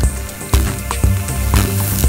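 Music with a steady bass pulse about twice a second, laid over electrical sound effects: buzzing, crackling sparks and sharp zaps.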